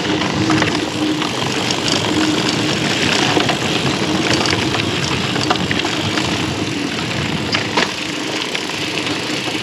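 Mountain bike rolling fast over dirt singletrack: steady tyre rumble and wind noise on the helmet camera, with sharp rattles and clicks from the chain and frame over bumps.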